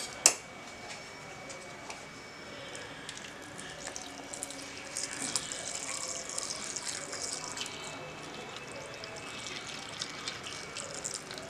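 A sharp click about a quarter second in, then milk poured in a thin stream into a plastic blender jar over dates and beetroot pieces: a steady splashing trickle that starts about four seconds in and is strongest around the middle.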